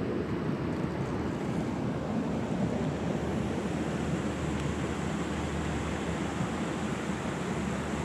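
Steady rush of a small creek's flowing water over riffles.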